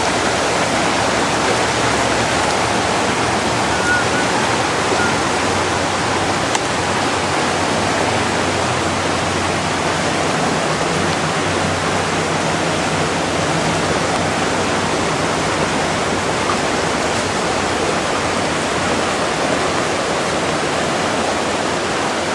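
Floodwater pouring and rushing steadily, a loud unbroken rush of water.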